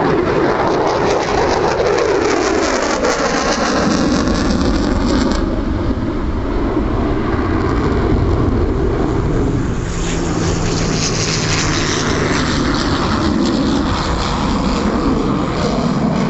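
F-22 Raptor's twin afterburning turbofans at high power during a fly-by, a loud continuous jet noise. It sweeps down in pitch over the first few seconds as the jet passes, turns duller about five seconds in, and grows harsher again about ten seconds in.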